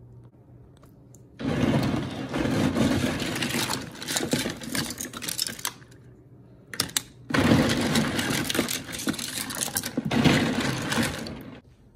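A hand swishing plastic LEGO bricks around in a plastic tub of soapy water: splashing mixed with the clatter of plastic pieces knocking together, in two spells of about four seconds with a short break between them.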